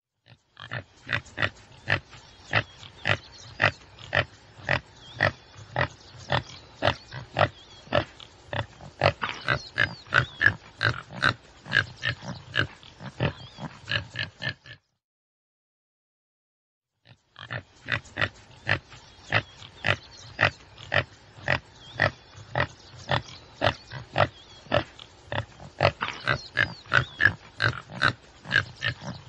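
Tsessebe (topi antelope) giving a long series of short, clipped calls at about two a second. The series cuts off abruptly about halfway, falls silent for two or three seconds, then starts again at the same pace.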